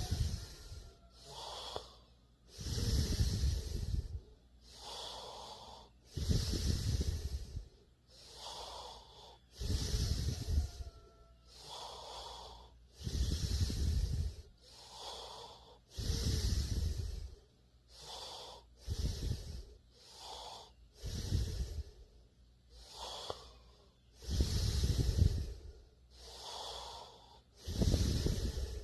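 A sleeping person snoring: a loud, low, rattling snore about every three and a half seconds, alternating with a softer breathy hiss between snores.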